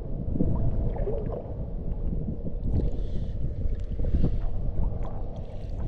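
Wind rumbling on a microphone mounted on a floating LEGO boat, with small waves slapping and splashing against the hull now and then as it bobs.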